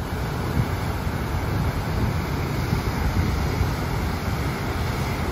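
Wind buffeting the microphone while cycling off-road: a steady rushing noise with an uneven low rumble.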